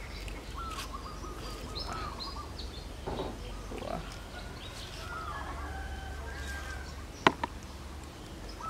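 Baby macaques making repeated high, wavering squeals and coos as they grab at fruit, with two sharp clicks in quick succession near the end.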